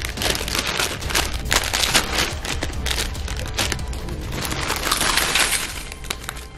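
Crinkly plastic chip bag rustling as it is torn open and handled, with tortilla chips tumbling and clattering into a stainless steel bowl. A constant crackle of many quick rustles and clinks, over a low steady music bed.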